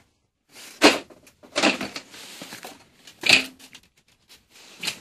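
A few short rustling, knocking handling noises, about a second apart, with the loudest a little under a second in and just past three seconds.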